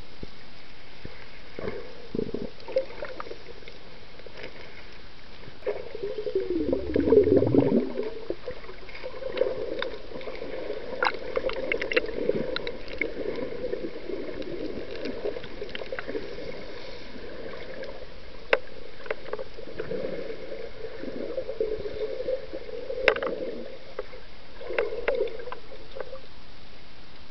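Muffled underwater water noise picked up by a submerged camera: a steady gurgling rumble, a louder gurgling surge about seven seconds in, and scattered sharp clicks.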